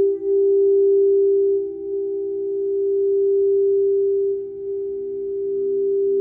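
Quartz crystal singing bowls ringing with sustained pure tones: two close notes held together, slowly swelling and fading. A third, lower note joins in about two thirds of the way through.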